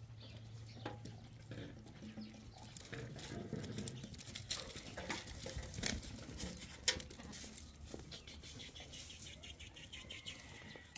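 Livestock moving about: irregular clicks, patter and shuffling of hooves on the ground.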